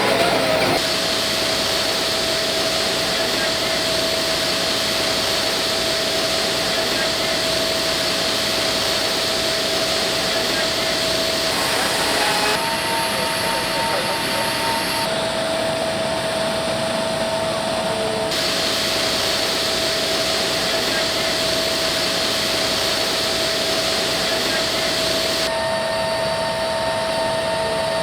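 Jet engines of the cargo plane running steadily: a constant whine over a broad rush, the high hiss changing abruptly several times.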